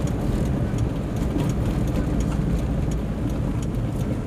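Steady engine and road noise heard from inside a moving car: a continuous low rumble.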